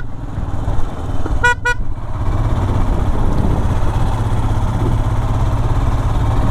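Royal Enfield Himalayan motorcycle's engine running steadily as it climbs a hill road. A horn gives a short beep right at the start and another about a second and a half in.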